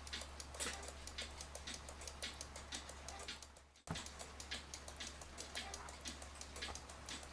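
Citizen battery-powered cuckoo clock ticking steadily, a few ticks a second, as its pendulum swings: the clock is running. The ticking breaks off briefly a little past halfway and then resumes.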